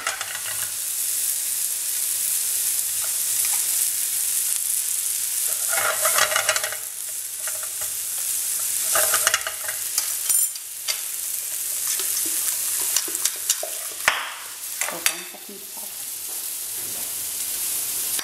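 Diced calabresa sausage sizzling in a non-stick frying pan, rendering in its own fat with no oil added: a steady frying hiss, with a few clicks and knocks about three-quarters through.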